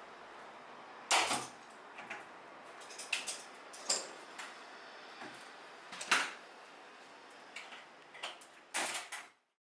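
Scattered knocks and rattles of hard parts being handled, as when a drum washing machine is taken apart, about eight sharp clatters spread irregularly over a quiet room; the sound cuts off just before the end.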